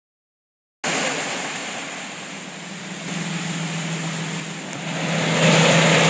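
Rushing, churning water with the steady low hum of a small micro-hydro turbine generator under it. Both start just under a second in and grow louder about five seconds in.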